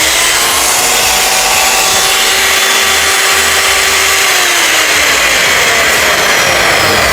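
Ge Pai 4-185 metal-cutting circular saw running with no load, a steady motor whine that falls in pitch in the second half. The even running is taken as a sign that the saw's bearings are good.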